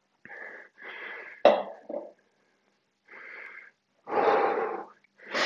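A man breathing hard as he recovers from a set of weighted lunges: a series of loud breaths and puffed exhales, roughly one a second, with a sharp one about a second and a half in and the loudest near the end.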